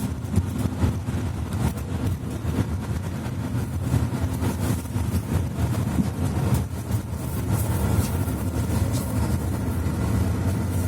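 Mercedes-Benz C2 articulated bus heard from inside the passenger cabin, its diesel engine running with a steady low hum, with a few light clicks and rattles.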